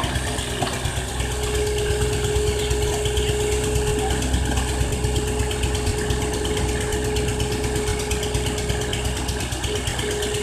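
Excavator's diesel engine running steadily, with a deep rumble and a steady whine on top that cuts out briefly near the end.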